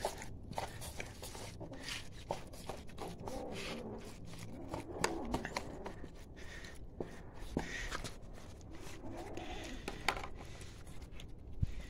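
A mother cat and her kittens chewing and licking wet cat food, a close, irregular run of small smacking clicks and soft scrapes.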